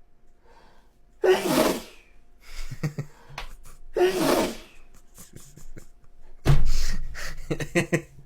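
A man sneezing three times in a row, about a second in, about four seconds in, and about six and a half seconds in, each sneeze loud and sudden. Shorter gasping breaths come between the sneezes.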